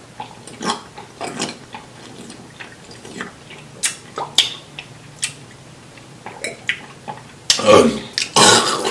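Close-miked wet chewing and lip-smacking, a string of short clicks and squishes. Near the end comes a louder voiced mouth sound, like a burp or a hummed "mm".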